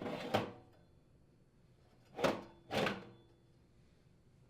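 New sheet-metal blower wheel being slid into a furnace blower housing: three short scraping slides of metal on metal, with a faint ring.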